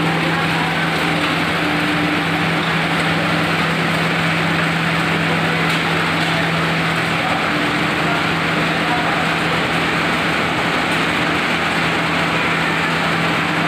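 Turmeric grinding mill running steadily under load, driven by an electric motor and grinding dried turmeric into powder. It makes a constant low hum under a dense rushing, whirring noise.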